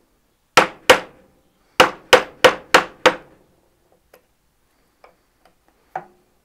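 A wood chisel being struck to chop out dovetail waste. There are two sharp blows, then a quick run of five, followed by a few faint taps and one lighter knock near the end.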